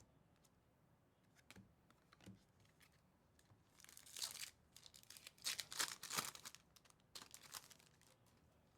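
Foil wrapper of a Topps trading-card pack being torn open and crinkled, in a run of short rips starting about four seconds in, after a couple of soft taps.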